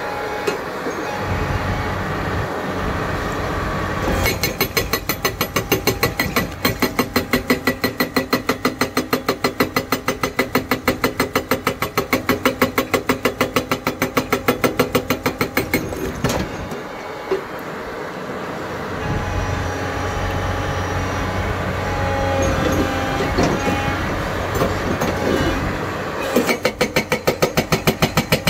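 An SHS81 hydraulic rock breaker on a Tata Hitachi EX200 excavator hammers rock in a rapid, even run of blows starting about four seconds in. The blows stop for about ten seconds while the excavator's engine keeps running, then resume near the end.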